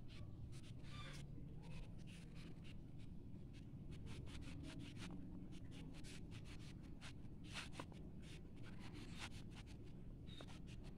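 Pink pastel crayon scratching on lined notebook paper in quick, irregular strokes as it colours in a shape, over a faint steady low background noise.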